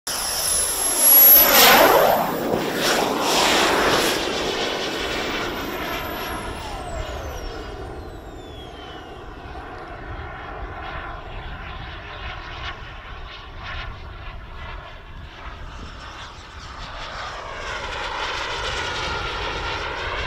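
RC model jet's turbine engine passing low: a loud rush with a high whine that falls steeply in pitch as it goes by in the first few seconds. The turbine sound then carries on more faintly and grows louder again near the end as a jet comes closer.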